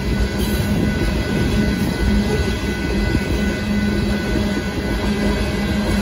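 Loaded open-top freight cars of a Union Pacific rock train rolling past at speed: a steady, loud rumble of steel wheels on rail, with faint thin high tones above it.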